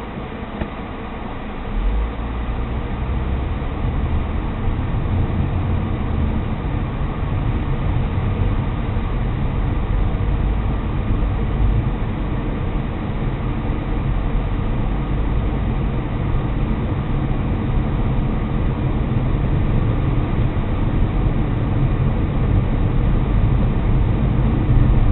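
Car driving, heard from inside the cabin: a steady low engine and road rumble that grows louder about two seconds in as the car gets under way and then holds.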